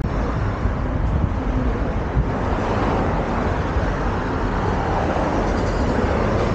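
Steady city street traffic noise, with wind rumbling on the microphone.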